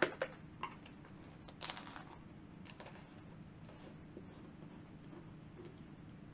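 Soft off-camera handling of craft supplies: a click right at the start and a short rustle just under two seconds in, then only faint scattered ticks over a low steady hum.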